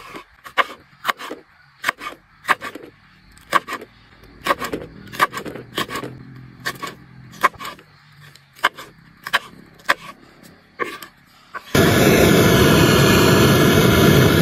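Knife chopping vegetables on a cutting board: sharp chops, about two a second. Near the end a loud steady rushing noise cuts in suddenly and drowns them out.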